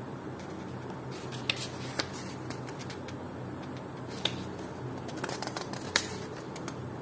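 Paper pages of a small instruction booklet being handled and turned by hand: light rustling with several sharp crackles, about a second and a half, two, four and six seconds in, the one near six seconds the loudest, over a faint steady hum.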